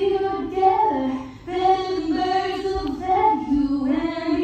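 A woman's voice singing a melody in long held notes that step up and down in pitch, with a brief break for breath about a second and a half in.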